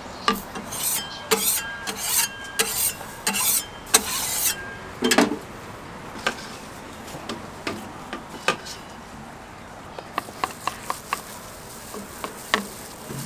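Flat wooden board scraped in quick rasping strokes across a round jianbing griddle plate, about six strokes in the first five seconds. After that come scattered light clicks and taps of the board on the griddle as batter is spread.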